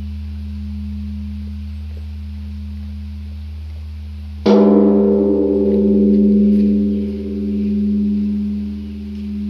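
Large bronze Korean Buddhist temple bell struck once with a swinging wooden log about halfway through. The deep hum left from the previous stroke gives way to a loud strike, then a long ringing that swells and fades in slow pulses.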